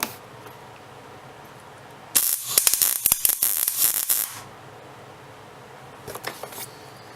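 Arc welding on a steel bracket: about two seconds of loud, crackling arc a couple of seconds in, then a second, shorter tack near the end, over a steady low hum.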